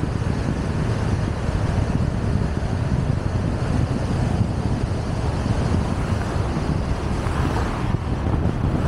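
Wind buffeting the microphone: a steady, gusty low rumble with no distinct tones.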